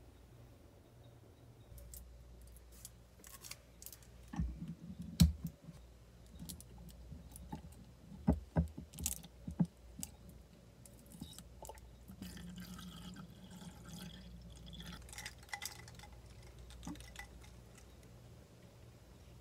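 Knocks and clinks of dishes and a glass set on a table, loudest a few seconds in and again around the middle, followed by a few seconds of liquid sound from a drink in a glass.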